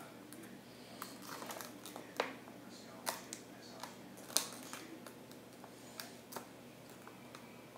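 Plastic wrapping on a glue bottle crinkling as fingers pick and pull at it, with scattered sharp little clicks and rustles. The loudest click comes about four seconds in.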